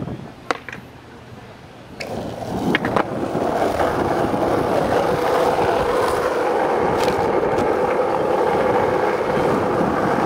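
Skateboard wheels rolling on an asphalt street, a steady rumbling that sets in about two seconds in and holds. It follows a few sharp clacks in the first three seconds.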